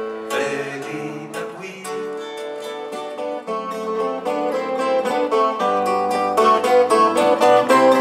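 Live acoustic band playing an instrumental passage between sung lines: a plucked-string melody on a bouzouki-like lute and acoustic guitar over a steady accompaniment, growing a little louder in the second half.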